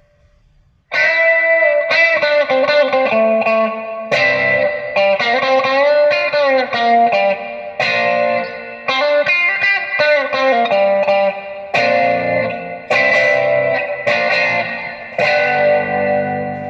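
Electric guitar with Filter'Tron-style humbucking pickups, played through a VOX VT40X modelling amp. It enters about a second in with a phrase of chords and single notes, some of them bent, and a last chord rings out near the end.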